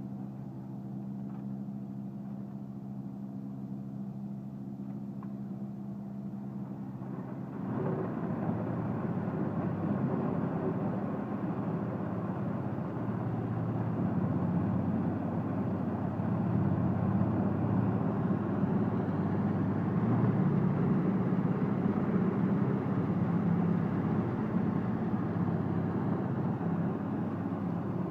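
Eschlböck Biber 84 truck-mounted wood chipper running steadily at first. About eight seconds in, the sound turns suddenly louder and dense as wood is fed in and chipped. It then keeps chipping steadily.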